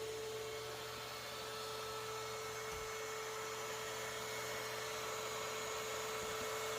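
Steady electrical hum with a faint constant higher tone over room tone; nothing starts or stops.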